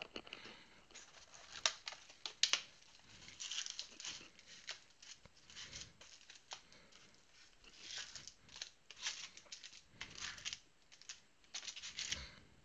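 Scissors snipping and plastic wrap tearing and crinkling as a sealed box of trading cards is cut open and its packs pulled out. Irregular bursts of rustling with a few sharp clicks.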